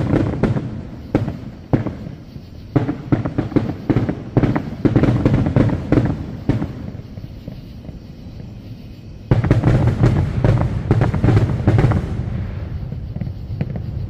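Aerial firework shells bursting: a sharp bang opens, followed by a run of crackling reports. After a lull, another sharp bang about nine seconds in sets off a dense flurry of crackling that tails off near the end.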